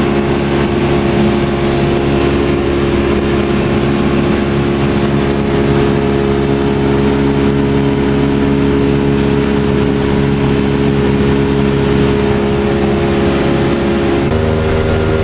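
A boat's engine running steadily, its note stepping up slightly about 14 seconds in. A few short high beeps sound over it in the first half.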